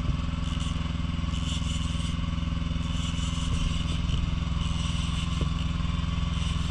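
A boat's engine running steadily with a low, even hum, with a few faint clicks over it.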